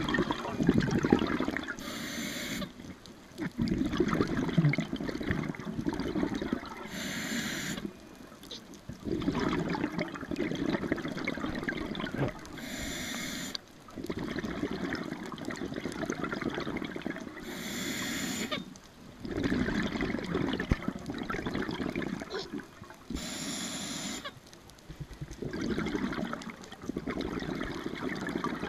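Scuba diver breathing underwater through a regulator: a short hiss with each inhale, then a longer stretch of bubbling with each exhale, about one breath every five and a half seconds, five breaths in all.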